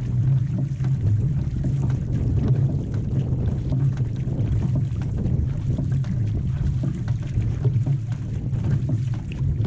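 Outrigger canoe under paddle: a steady low rush of water and wind buffeting a microphone mounted close to the water, with the splashes of paddle blades dipping in.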